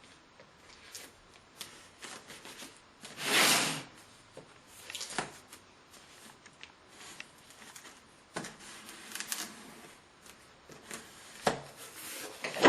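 Cardboard box being opened and its packaging handled: scattered rustles, scrapes and clicks, with one longer scraping noise about three seconds in and sharp knocks near the end.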